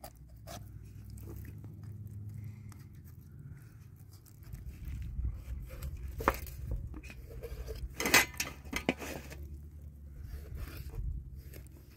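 Kitchen knife cutting slits into a raw whole chicken on a metal tray, with scattered sharp clicks of the blade and tray. The loudest is a quick cluster of clicks about eight seconds in.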